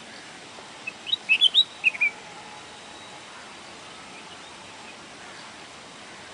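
Red-whiskered bulbul singing one short, quick phrase of about seven bright notes about a second in, over a faint steady hiss.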